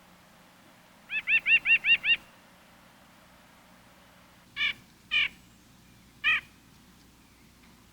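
A bird calling: a quick run of six arched notes about a second in, then three separate single notes spaced over the next two seconds.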